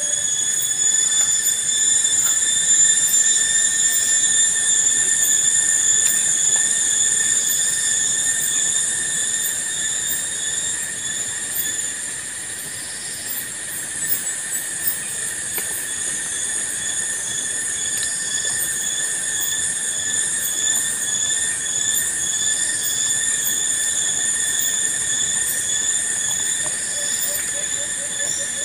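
Steady, high-pitched chorus of forest insects, several shrill tones held at once without a break.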